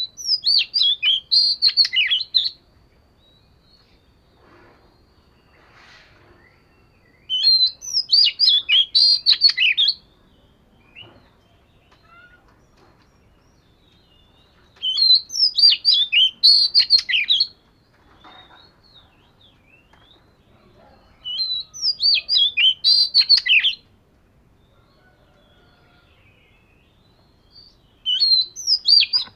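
Oriental magpie-robin singing in five short bouts about seven seconds apart, each a quick run of high, sweet whistled and chattering notes lasting two to three seconds.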